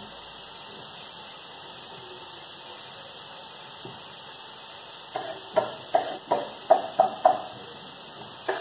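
Kitchen knife chopping on a wooden cutting board: a quick run of about seven sharp knocks, about three a second, starting a little past halfway, and one more near the end. Before that there is only a steady, faint hiss from meat frying in a pan.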